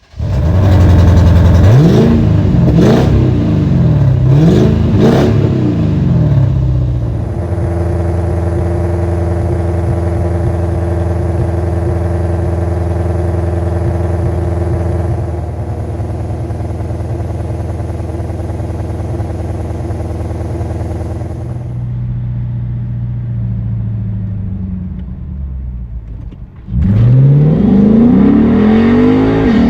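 Lexus IS F's 5.0-litre V8 blipped through a few quick revs, then idling steadily for about twenty seconds, then revved sharply again near the end.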